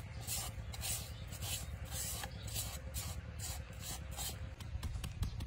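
Fingers scraping a moist herb mixture out of a coconut-shell bowl into an opened green coconut: short rasping scrapes about twice a second, with a few sharper ticks near the end.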